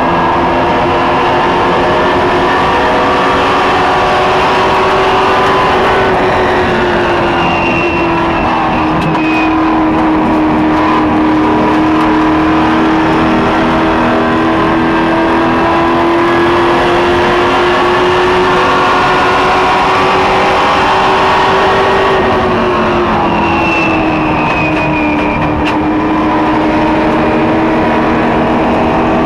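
Ethanol-fuelled racing super truck's engine running hard at speed, heard from inside the cab. The engine note sags and climbs back twice.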